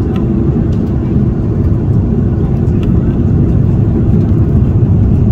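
Steady low rumble of an airliner cabin in flight: the engine and airflow noise of an Airbus A330-300, heard from an economy seat.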